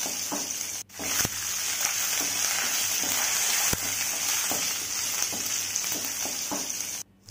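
Hot oil sizzling in a steel kadai while a wooden spatula stirs a tempering of dals, crushed garlic, dried red chillies and curry leaves, with scattered scrapes and taps of the spatula on the pan. The sizzle breaks off briefly about a second in and again near the end.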